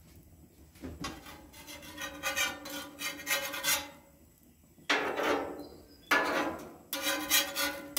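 Metal spatula scraping across the steel plate of a flat iron griddle as it slides under pancakes to flip them. Several scraping strokes, each with a ringing tone from the plate, the strokes louder and sharper in the second half.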